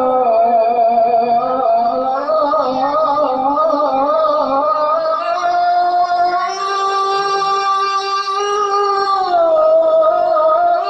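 A solo voice chanting the shalawat in the ornamented Qur'anic recitation (qiro'ah) style, drawing one syllable out in a long melisma with quick wavering turns. About six seconds in it leaps to a higher, held note, which slides down near the end.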